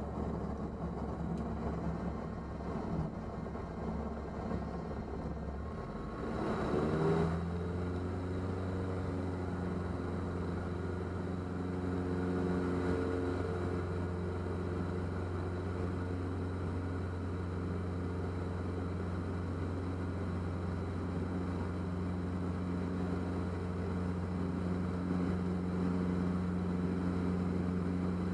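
Diamond DA40's engine and propeller heard from inside the cockpit, running at low power, then rising in pitch and loudness about six seconds in as it goes to takeoff power, and running steadily at that higher pitch through the takeoff roll and climb-out.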